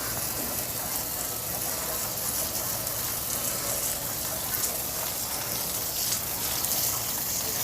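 Pressurised water jet spraying onto a window air conditioner's condenser coil and aluminium fins, a steady rushing hiss over a steady low hum, washing out the dust caught in the fins.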